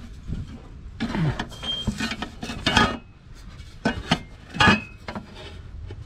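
Aluminium intake tube clinking and scraping against the throttle body and engine parts as it is handled and set into place, in two irregular spells of metallic knocks.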